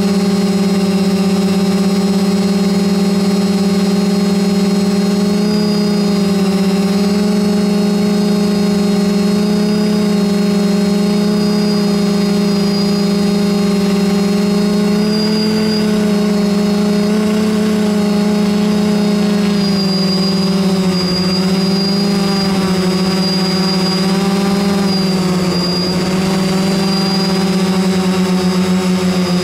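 A quadcopter's brushless electric motors and propellers humming steadily, heard close up from the camera it carries. The pitch wavers slightly in the second half as the motors change speed.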